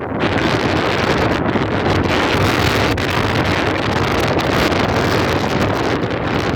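Strong gusting wind blasting across the microphone, a loud, steady rumbling roar with no break.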